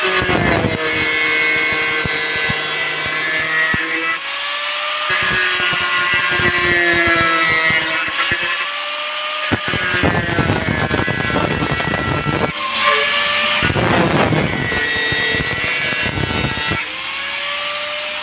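Electric angle grinder running with its disc against the metal edge of an old frying pan: the motor whine dips and rises in pitch as it is pressed in, with stretches of harsh grinding noise, the heaviest in the second half.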